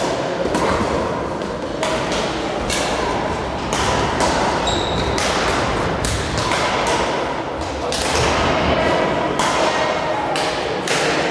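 Badminton rackets hitting shuttlecocks, many irregularly spaced hits from this and neighbouring courts, over a continuous murmur of voices in a large sports hall.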